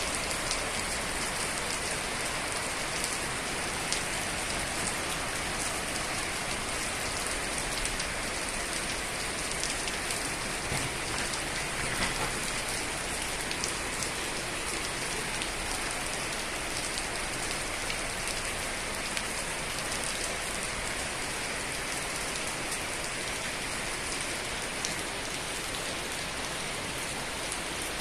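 Heavy rain falling steadily, a dense even hiss with scattered sharp ticks of drops striking surfaces.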